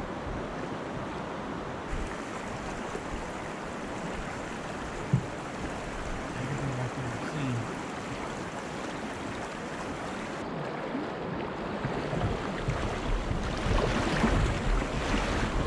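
River current rushing and splashing around a kayak, with a single sharp knock about five seconds in. Near the end the water noise gets louder and rougher as a person wades through the current beside the kayak.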